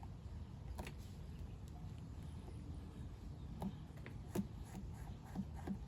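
Faint handling noises from hands working a glued sidewall patch onto a tire: a few scattered light clicks and taps, the sharpest about two-thirds of the way in, over a low steady background rumble.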